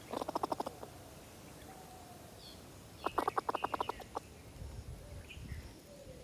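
A young grizzled giant squirrel giving two rapid rattling chatters, each about a second long: one at the start and one about three seconds in.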